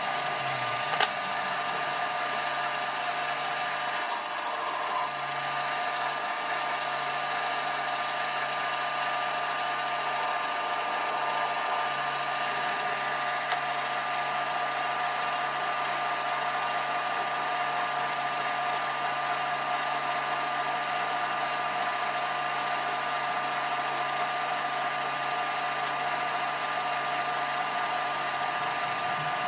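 Holzmann ED750FD metal lathe running steadily at about 500 rpm, with a continuous motor and gear whine. There is a brief louder, hissy burst about four seconds in.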